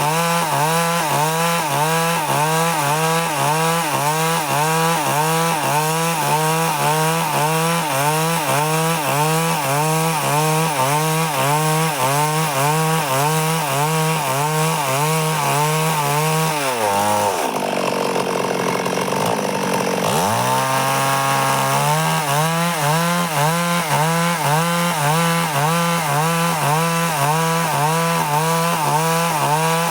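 Stihl two-stroke chainsaw cutting under load, its engine pitch rising and falling about once a second as the bar rocks through the wood. About halfway through, the pitch drops low for about three seconds, then revs back up.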